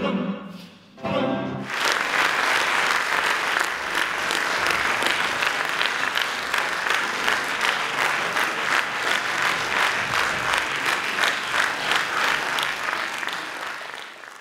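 Music ends on a last chord about a second and a half in, followed by a theatre audience applauding steadily, fading out near the end.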